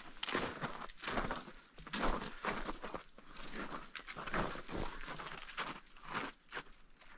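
Footsteps in snow: a mountaineer's boots crunching down a tracked snow ridge, about two steps a second, somewhat irregular.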